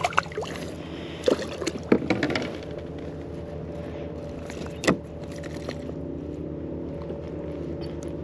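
A weakfish splashing at the surface as it is lifted out beside a kayak, followed by scattered knocks and rattles as the fish and lure are handled, with one sharp knock about five seconds in. A steady low hum runs underneath.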